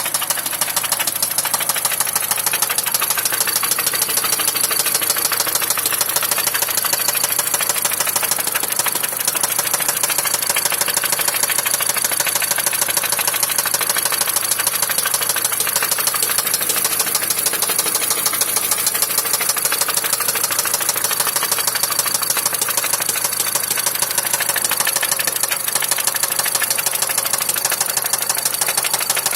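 Engine running steadily with a fast, even knocking that does not change, the knock the owner is showing as a fault.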